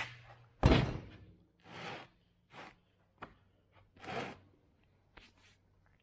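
A heavy thunk, then a few short rubbing or scraping sounds and light clicks: heavy metal parts being handled and set down.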